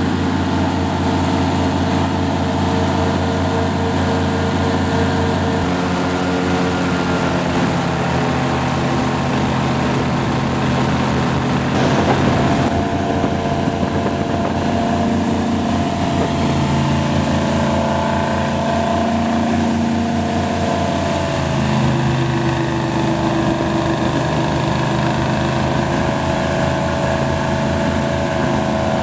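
Rescue airboat's engine and large air propeller running under way, a steady drone whose pitch shifts a couple of times as the throttle changes. A brief rush of noise comes about twelve seconds in.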